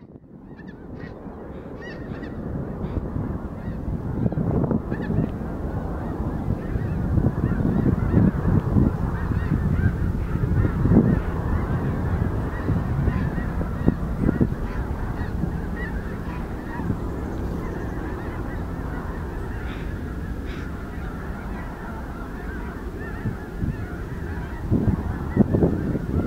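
A dense, continuous chorus of honking calls from a large flock of birds, fading in over the first two seconds.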